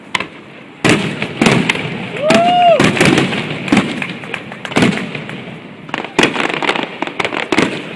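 Aerial fireworks bursting: a run of sharp bangs at uneven intervals, about ten in all, each trailing off in echo. About two seconds in, a short whistle-like tone rises and falls.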